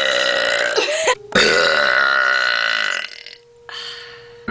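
Two long, deliberate voiced burps. The first trails off about a second in, and the second follows almost at once and lasts about a second and a half.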